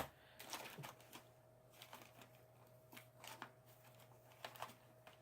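Faint, scattered clicks and rustles of small craft supplies being handled and searched through, over a low steady hum.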